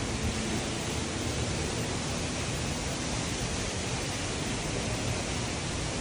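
Steady rush of falling water, an even hiss that holds level.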